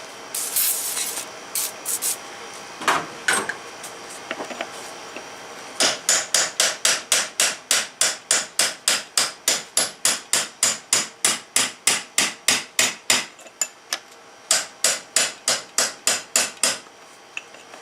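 A short hiss of aerosol spray, then a long run of steady hammer blows on the steel steering gearbox, about three a second. The blows pause briefly near the end, then come again in a last run.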